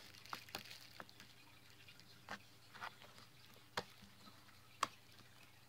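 Green glitter slime being kneaded and pressed by hand, giving faint, irregular sticky clicks and pops.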